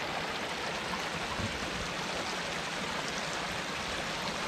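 Woodland creek rushing steadily, swollen well above its usual trickle after heavy rain.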